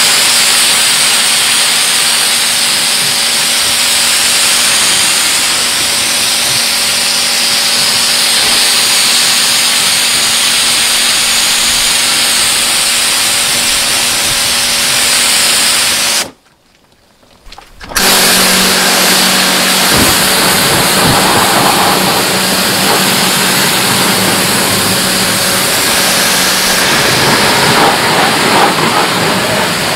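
Pressure washer spraying, a steady hiss of the water jet over the pump's motor hum. It cuts out for about a second and a half midway, then starts again with a slightly lower hum.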